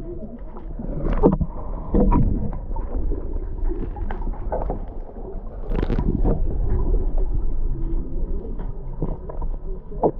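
Sea water sloshing and lapping with a constant low rumble, broken by a few muffled knocks.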